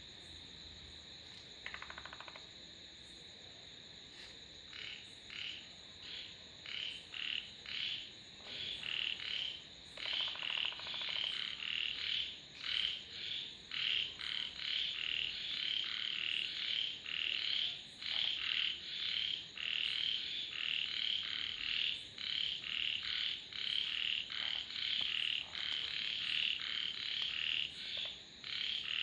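Frogs calling: a repeated series of short calls, about two a second, starting a few seconds in and growing louder, over a steady high-pitched chorus.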